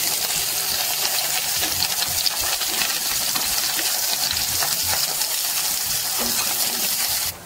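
Aubergine slices frying in oil over low heat: a steady sizzle with scattered small crackling pops, which stops abruptly just before the end.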